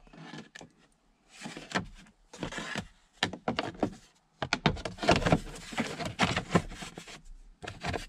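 Hard plastic steering-column cover being worked into place over a 2008 Chevy Silverado's steering column: irregular clicks, knocks and scraping of plastic trim against plastic.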